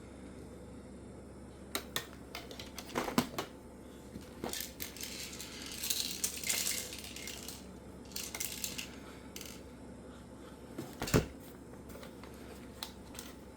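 Toy dart guns being handled: scattered clicks and clatters of hard parts, with two sharper knocks and a brief hiss partway through.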